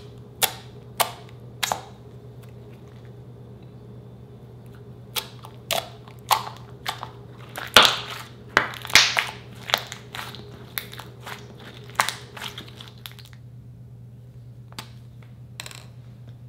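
Glossy slime being poked, then stretched and folded by hand, giving sharp clicking pops: three spaced pops at first, then a dense run of squelchy pops and crackles that thins out to a couple of single clicks near the end.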